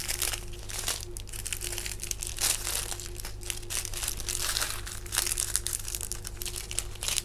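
Small clear plastic bags of diamond painting drills crinkling and rustling as they are picked up and sorted by hand, an irregular stream of crackles.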